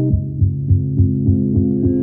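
Background music: sustained chords over a steady low pulse, about three beats a second, with the music changing to a new section right at the start.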